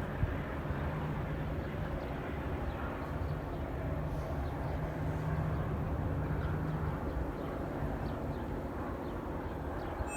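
Steady low rumble of a diesel locomotive's engine running.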